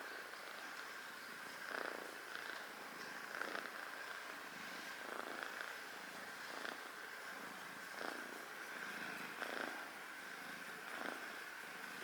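Sleeping kitten purring faintly, the purr swelling with each breath about every second and a half.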